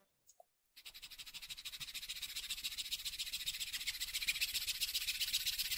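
Round file rasping across the end grain of a wooden block in quick, rhythmic strokes, cutting a groove; it starts about a second in.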